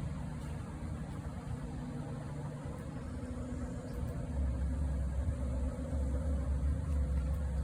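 A low, steady engine-like hum that grows louder about four seconds in.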